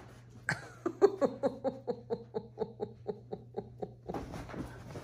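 A person laughing, a long run of quick breathy pulses at about five a second that trails off after about four seconds, over a faint steady hum.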